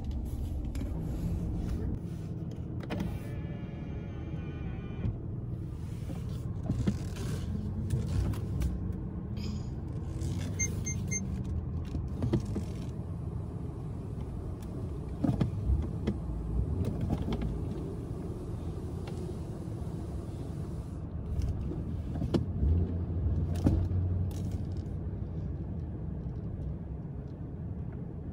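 Car cabin sound while the car creeps slowly into an automatic car-wash tunnel: a steady low engine and road rumble with occasional thumps. A brief whirring a few seconds in, and a few short beeps about ten seconds in.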